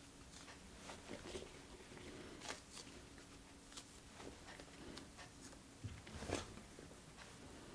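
Fresh shiitake mushrooms being torn apart by hand: faint, irregular soft snaps and crackles, with a louder crackle about six seconds in.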